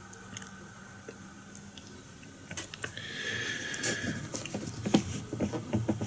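Soft clicks and rustling of fly-tying tools and thread being handled at the vise, sparse at first and busier from about halfway through, with a brief faint high tone in the middle.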